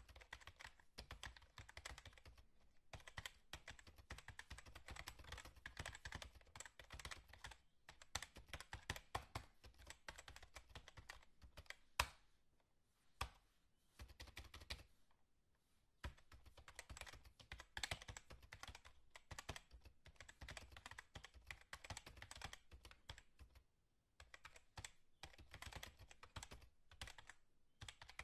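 Quiet, rapid typing on a computer keyboard: a steady patter of key clicks. There is one sharper strike around the middle and a couple of brief pauses.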